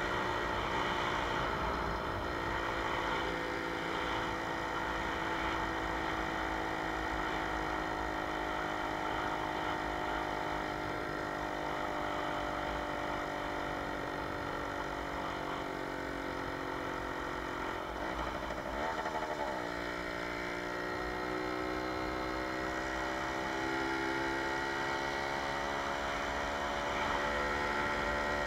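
A Jawa 20 Pionýr moped's 50 cc single-cylinder two-stroke engine running under way. Its pitch sinks slowly for most of the first two-thirds, dips and recovers quickly about two-thirds through, then climbs steadily toward the end.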